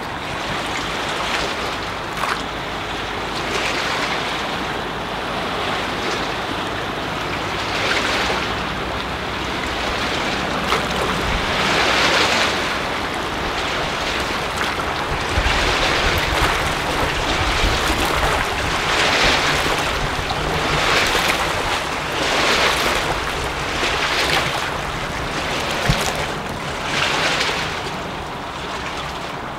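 Small waves washing and lapping, swelling every second or two, with wind on the microphone. Beneath them runs the low steady drone of a sports cruiser's MerCruiser diesel engine under way.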